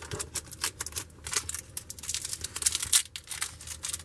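Crinkling and tearing of a trading-card pack's wax-paper wrapper as it is opened and handled, a dense run of irregular crackles.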